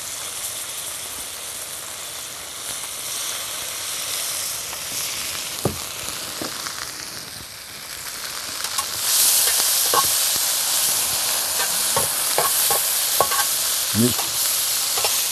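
Sliced peppers, tomatoes and beans sizzling in an oiled skillet. The sizzle jumps louder about nine seconds in, and a metal utensil stirs the vegetables, knocking and scraping against the pan several times near the end.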